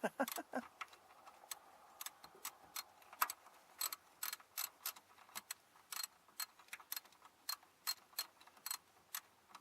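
Hand ratchet wrench clicking in short, irregular runs of sharp ticks, a few a second, as fasteners on a newly fitted starter are turned.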